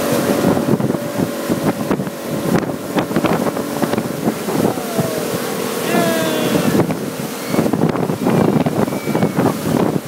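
Centurion Falcon Barefoot ski boat's inboard engine running at towing speed, with wind buffeting the microphone and the wake churning behind the stern.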